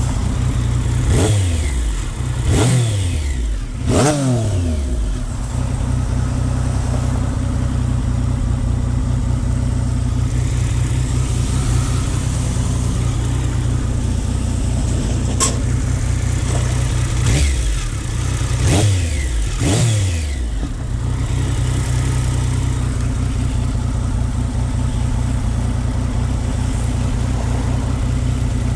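Triumph Speed Triple 955i's inline-three engine idling, blipped three times near the start and three more times about two-thirds through, each rev falling quickly back to idle. About halfway through there is a single sharp click, an odd clunking noise.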